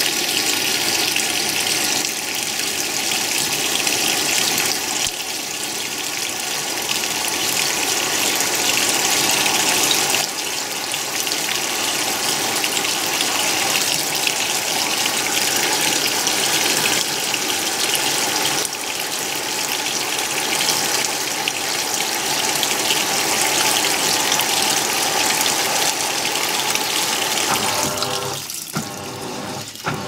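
Haier top-load washing machine filling, with water gushing steadily from the inlet onto a tub of towels. The flow cuts off near the end, followed by a few clicks.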